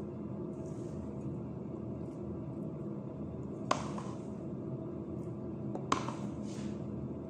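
Steady low hum, with two sharp knocks, one about halfway and one about two seconds later.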